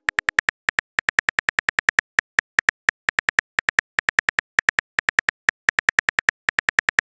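Simulated phone-keyboard typing clicks from a texting-story app as a message is typed out letter by letter: short, sharp ticks, several a second, with brief irregular pauses.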